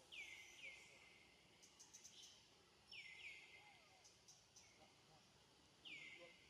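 Faint, high bird chirps, each sweeping downward in pitch. They come in a pair at the start, another pair about three seconds in, and once more near the end, with a few soft clicks between them.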